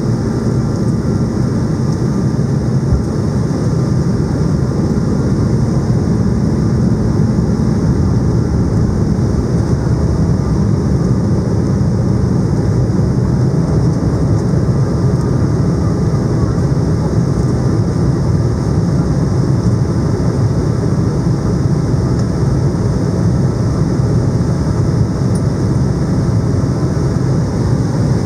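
Steady cabin roar inside an Embraer E190 on approach: its two GE CF34-10E turbofan engines and the airflow over the fuselage, heard from a window seat, loud and even, with a low hum that fades a few seconds in.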